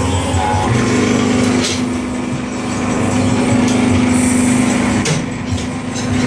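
Hydraulic pump unit of a gallon-cap plastic injection molding press running with a steady hum. A couple of short knocks, and about five seconds in the hum briefly changes.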